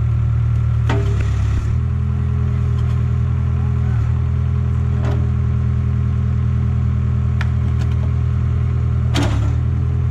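An engine running steadily at a constant speed, with a few sharp clanks and knocks over it, the loudest near the end.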